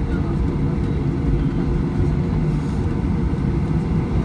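Cabin noise inside a Boeing 737-800 taxiing: a steady low rumble of its CFM56-7B engines at taxi idle.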